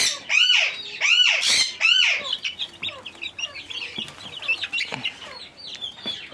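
Loud, harsh bird calls repeated about twice a second for the first two seconds, then a busy chatter of many smaller birds chirping.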